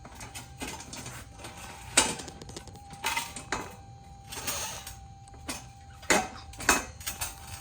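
Scattered metallic clanks, clicks and rattles from a BMX bike being handled, the loudest knocks about two seconds in and twice near six seconds. A steady faint high buzz from the camera runs under them.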